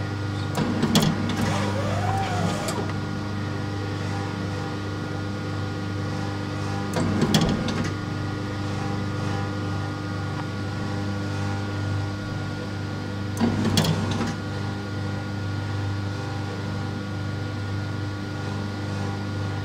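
Starpizza Ballmatic dough divider-rounder running with a steady motor hum. A short burst of mechanical clattering and knocking comes about every six and a half seconds, three times, as the machine cycles.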